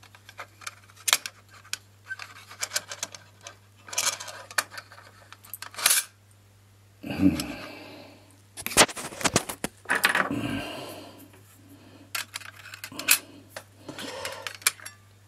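Small metal tools and hard-drive parts being handled: irregular light clicks, taps and clinks with short bouts of scraping and rustling.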